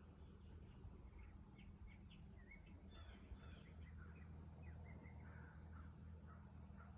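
Faint birdsong: many short chirps and quick rising and falling notes from several small birds, overlapping, over a steady low hum.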